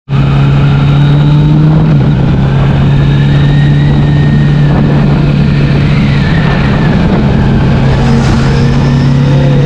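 Kawasaki Z900 inline-four motorcycle engine running at a steady cruising speed, its note holding nearly level with small dips in pitch, under steady rushing wind and road noise on the camera microphone.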